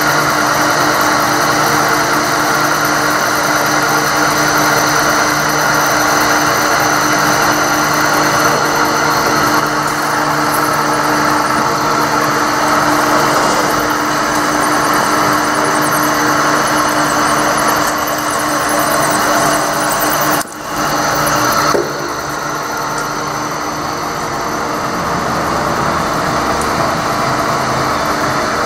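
Vertical milling machine running steadily, its spinning cutter machining a part clamped in the vise as the table is fed by hand. A brief dip about two-thirds through, after which it runs a little quieter.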